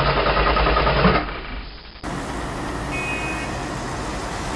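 Car engine sound effect: a stalled car's starter cranking without the engine catching, fading out between one and two seconds in. It is followed by the steady running noise of a vehicle engine.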